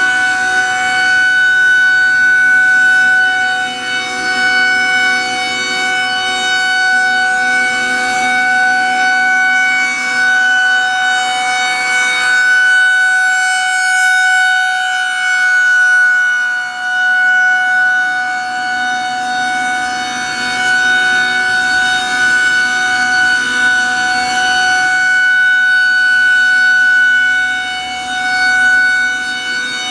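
Federal Signal 2001-130 rotating electromechanical outdoor warning siren sounding a steady held tone during a test. The pitch holds level throughout, and the loudness swells and dips about every twelve seconds as the rotating head sweeps past.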